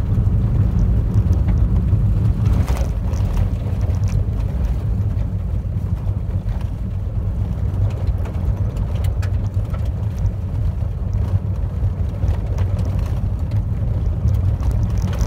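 Car driving heard from inside the cabin: a steady low rumble of tyres and road noise as it runs onto a gravel road, with scattered light ticks.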